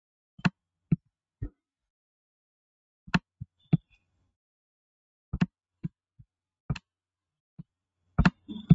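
Sharp clicks of a computer mouse and keyboard, a dozen or so single clicks at irregular intervals with a quick flurry near the end.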